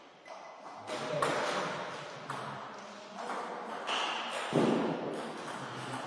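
Table tennis ball clicking off rackets and the table at irregular intervals, with a serve and the start of a rally, ringing in a large echoing hall. A duller, louder thud comes about halfway through.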